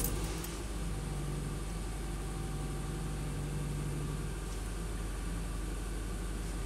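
Honda Civic engine on a cold start in 3-degree weather, catching right at the start and then idling steadily and quietly, heard from inside the cabin.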